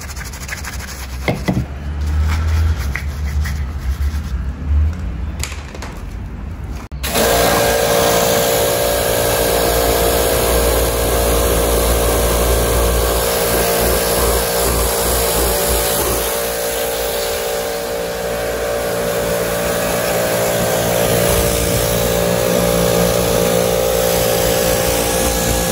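A soft-bristled detailing brush scrubs a wet car badge with a rough rubbing sound for about seven seconds. Then a pressure washer cuts in suddenly: its motor hums steadily under the hiss of the water jet rinsing the acid-rain remover off the car's rear hatch.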